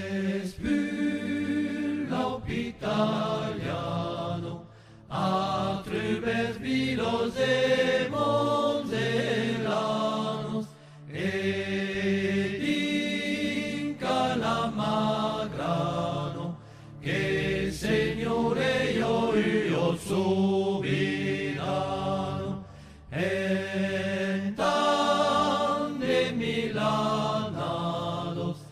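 Background music: singing voices in a chant-like style, in phrases broken by brief pauses about every six seconds.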